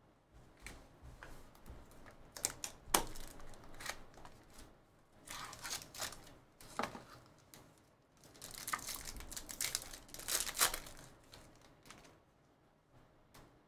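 Trading-card box and foil pack wrapping torn open and crinkled by hand, in irregular bursts of rustling and tearing with short pauses between.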